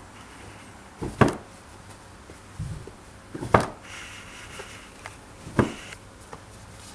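Heavy hand-knotted Persian rugs being flipped over one after another on a pile, each landing with a brief thud. Three flips about two seconds apart, each with a smaller rustle just before it.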